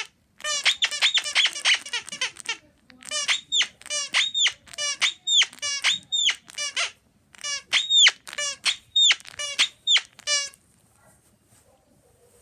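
Repeated short, high-pitched squeaks in quick runs of several, each with an arching pitch. They stop about ten and a half seconds in.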